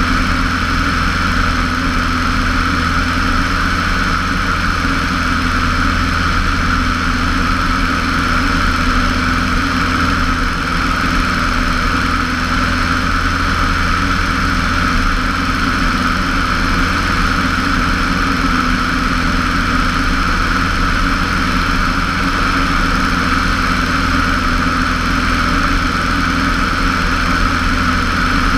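Cessna 150's four-cylinder Continental O-200 engine and propeller running steadily during the climb-out after takeoff. Heard from a camera mounted outside in the airstream, with a steady rush of wind over it.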